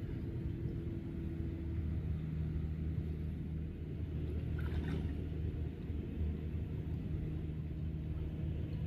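A steady low humming drone over a rumble, with a brief faint higher sound about five seconds in.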